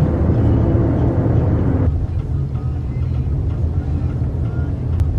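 Steady low rumble of a moving vehicle, like road noise inside a car. About two seconds in, the higher part of the noise drops away abruptly and the low rumble carries on.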